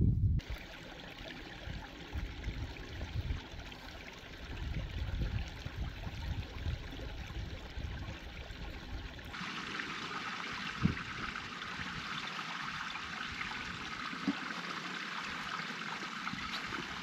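Small hillside stream trickling and splashing over rocks, with wind buffeting the microphone in the first half; about halfway through the sound changes abruptly to a clearer, brighter trickle. A couple of brief knocks sound in the second half.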